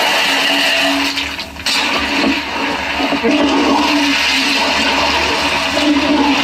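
Water sloshing and rushing in a large cooking pot as rock sugar is tipped in and stirred with a wooden spoon, the sugar water being heated to make syrup. The rush dips briefly about a second and a half in, then carries on steadily.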